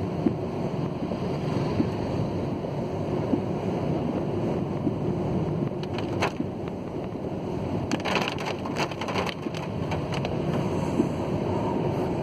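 Steady rushing noise inside a car driving through heavy rain on a wet road: rain on the car and tyres on the wet road, heard through the cabin. A few sharp ticks come about halfway through and again a couple of seconds later.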